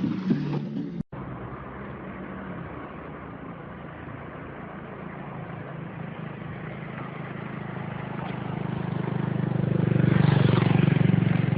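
An engine running steadily with a low hum, growing louder toward the end and easing off again.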